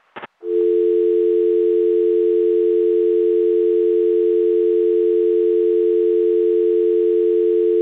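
A click, then a steady two-tone telephone dial tone that starts about half a second in and holds on unbroken: the line has gone back to dial tone after the disconnected-number recording.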